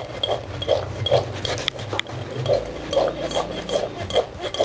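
Oil-coated chickpeas being tossed around a glass mixing bowl, sliding and tumbling against the glass in a quick, uneven run of soft shuffles, about two or three a second.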